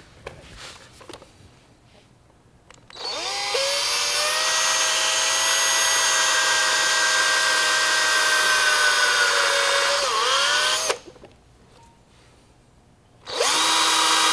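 Ryobi cordless drill boring the screw hole for a strap button through a glued-in wooden dowel plug in a guitar body. It spins up about three seconds in and runs steadily for about eight seconds, dips briefly in pitch just before it stops, then runs again in a short burst near the end.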